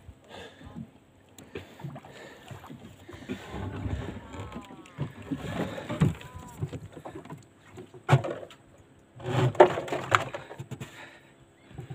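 Water splashing and a string of knocks and thumps on a small wooden boat as a stingray is hauled out of the water by its tail and brought aboard. The loudest thumps come about two-thirds of the way through.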